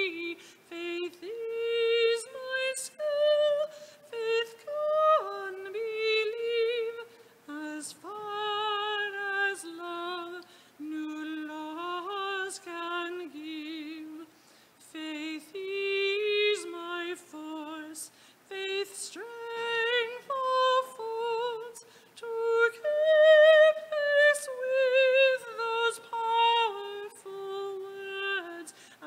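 A woman singing a hymn with vibrato on the held notes, one voice moving from note to note.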